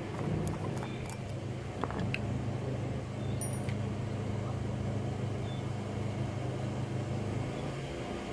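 Steady low hum of an engine running nearby, with faint clicks of metal parts being handled and a light metallic clink about three and a half seconds in.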